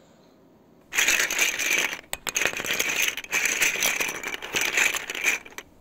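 Hands rummaging through buckets of small plastic Pinypon toy pieces, making a dense clatter of plastic parts rattling against each other. It starts about a second in, dips briefly near two seconds, and stops just before the end.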